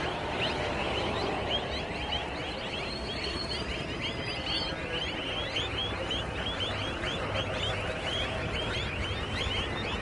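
A large crowd of chicks peeping without pause, many short, high, falling cheeps overlapping, over a steady low rumble.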